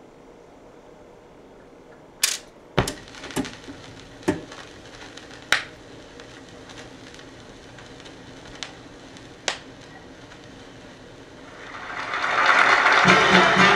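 Vinyl LP played on a KLH Model Twenty Plus record player: steady surface hiss from the stylus in the lead-in groove, with a handful of sharp clicks and pops. About twelve seconds in, the recorded live audio swells in loudly.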